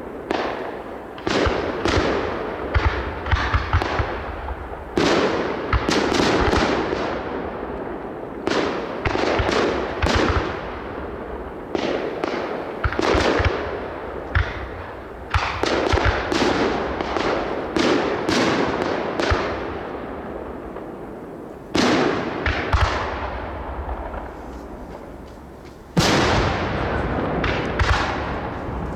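Aerial fireworks display: shells bursting in rapid clusters of bangs, each with a rolling echo, with two heavy single booms about 22 and 26 seconds in.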